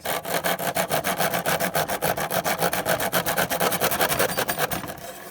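Hand saw cutting through a router's thick plastic casing in rapid, even back-and-forth strokes, several a second, grinding the plastic into flakes. The sawing eases off just before the end.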